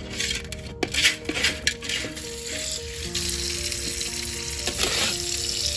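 Pebbles rattling and scraping in a strainer as they are rinsed in a sink, with tap water running steadily from about three seconds in. Soft background music with held notes plays underneath.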